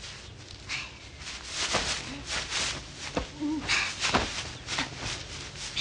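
Two women grappling in dry grass and straw: rustling and scuffling in quick bursts, with short grunts and gasps of effort.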